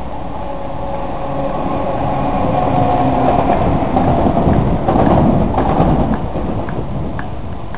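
EWS Class 66 diesel locomotive 66167 passing, its two-stroke V12 engine growing louder to a peak about five seconds in, then fading as it draws away.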